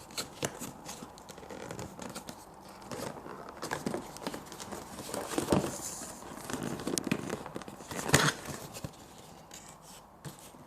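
Cardboard lens box and its paper packing being opened by hand: irregular tearing, crinkling and scraping with scattered clicks, and two sharper tearing noises, one about five and a half seconds in and one about eight seconds in.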